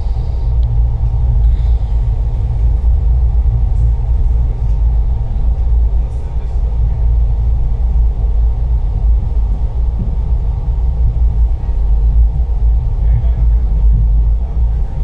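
Steady low rumble of a moving train, running evenly with no distinct clatter or horn.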